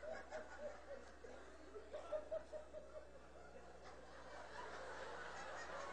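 Faint scattered laughter and chuckling from a live comedy audience, swelling a little in the second half, over a steady low electrical hum.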